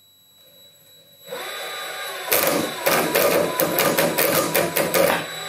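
CJ0618 mini lathe's motor starting up and speeding up, then a loud, irregular clattering for about three seconds as the toothed drive belt slips over the toothed motor pulley, before the machine is switched off and winds down near the end. The belt slips because the motor sits loose on bent, undersized mounting studs.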